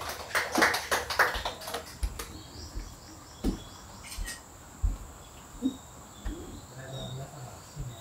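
Footsteps walking on wooden floorboards, a dull thud about every 0.7 seconds. Birds chirp in quick bursts during the first two seconds.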